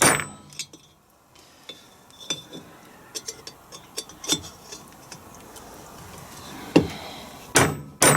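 Hammer blows tapping a bearing race out of an LT230 transfer box housing, metal on metal with a ringing after each strike. A hard blow at the start, light clinks for several seconds, a knock about 7 seconds in, then two loud strikes near the end.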